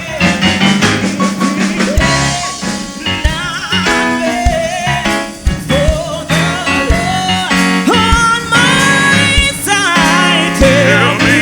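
Gospel worship music from a band, with drums, bass and guitar under a wavering, gliding melodic line that is a singing voice.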